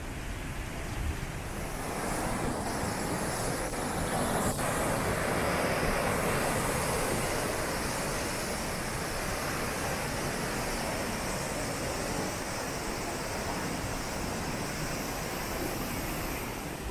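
Steady rushing of a flood-swollen, muddy river running hard through rapids after heavy rain, swelling a little a few seconds in.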